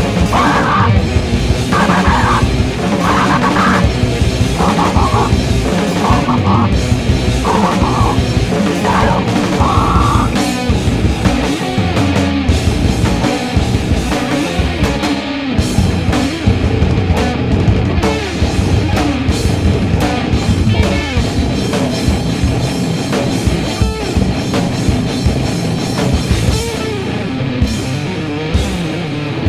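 Heavy metal music: a band recording with distorted electric guitars and a drum kit playing without a break.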